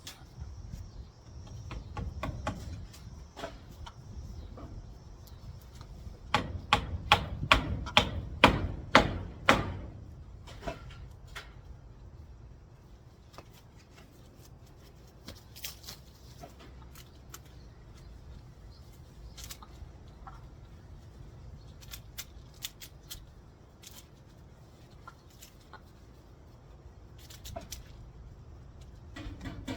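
A quick run of sharp knocks, about four a second for three or four seconds, with scattered fainter clicks before and after.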